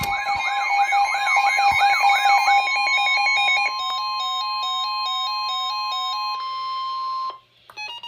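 Weather radio emergency alert tones announcing a blizzard warning. A steady alarm tone near 1 kHz, the NOAA Weather Radio 1050 Hz warning tone, has electronic siren tones layered over it: a rising whoop repeating about three times a second for the first couple of seconds, then a stepping high-low beep. All of it cuts off suddenly about seven seconds in, followed by a couple of clicks.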